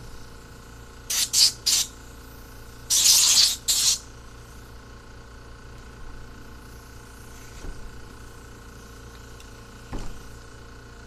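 Short hissing blasts of spray aimed at a four-barrel carburetor to clean it: three quick bursts, then two longer ones about three seconds in. Near the end, a light knock as the carburetor is set down on the wooden bench.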